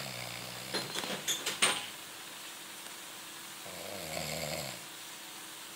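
Snoring: two low snores about three and a half seconds apart, the first at the start and the second about four seconds in, each lasting about a second. A few sharp clicks fall between them.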